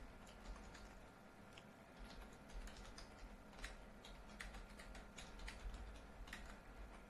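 Faint typing on a computer keyboard: irregular single keystrokes over a low steady hum.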